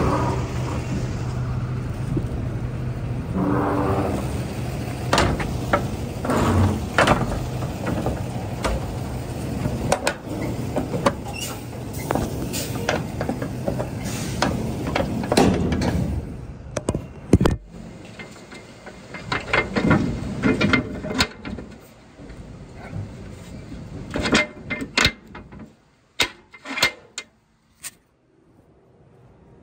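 Semi truck's diesel engine idling steadily, with scattered knocks and clicks over it; about halfway through the engine sound drops away, leaving a few knocks.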